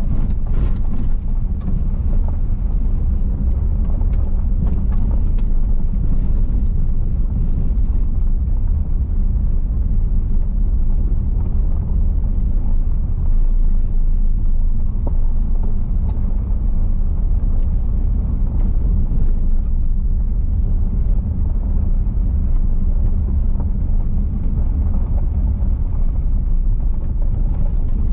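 Steady low rumble of a car driving on a gravel road, heard from inside the cabin: tyre and road noise with the engine, and a few faint ticks.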